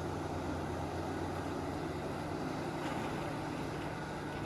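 Caterpillar 6015B hydraulic mining excavator running steadily under load, its diesel engine giving a constant low drone.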